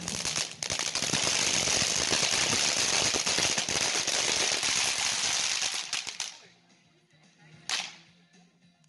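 Consumer fireworks going off in rapid succession, a dense crackling rattle of many small reports for about six seconds, which cuts off suddenly; one single sharp bang follows about a second and a half later.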